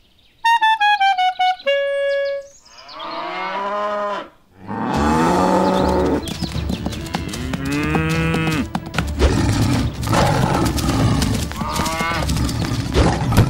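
Cattle mooing: many drawn-out calls that rise and fall in pitch and often overlap, over a steady low rumble. Just before the mooing begins there is a short cartoon-style sound effect, a falling series of pitched tones ending in a held note.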